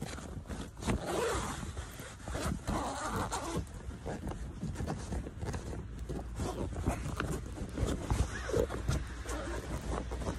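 A zipper on a tarp cover being pulled open in uneven tugs, with the tarp sheeting rustling as it is handled.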